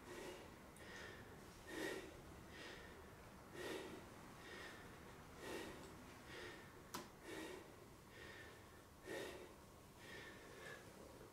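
Faint puffs of breath blown into a tinder bundle holding a bow-drill ember, about one every two seconds with quieter breaths drawn in between: coaxing the ember into flame. One sharp click about seven seconds in.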